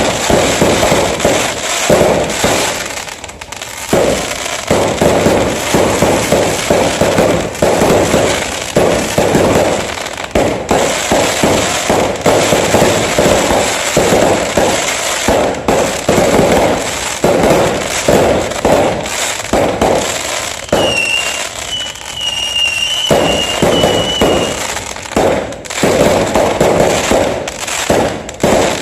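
New Year fireworks and firecrackers going off in a dense, unbroken barrage of rapid bangs and crackling. For a few seconds after about 21 seconds in, a high thin whistle sounds over the bangs.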